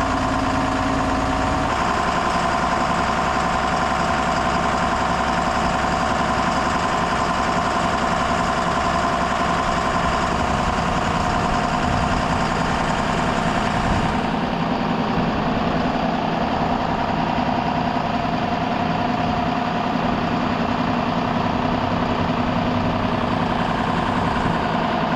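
Diesel tractor engine running steadily, its tone shifting slightly about two seconds in and again about fourteen seconds in.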